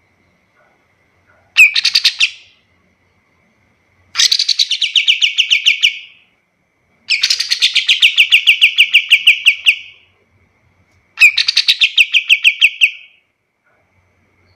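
Kapas tembak bulbul singing: four bursts of fast, evenly repeated chattering notes, the third the longest at about three seconds, with short gaps between them. A faint steady thin tone sits underneath in the gaps.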